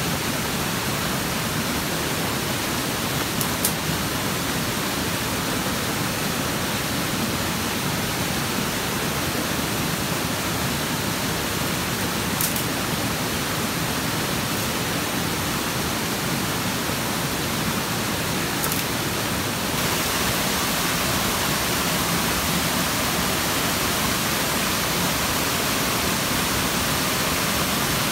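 Steady rush of a mountain stream pouring over rocks, with a few faint clicks. About twenty seconds in, the rush turns brighter and hissier, the sound of small waterfalls close by.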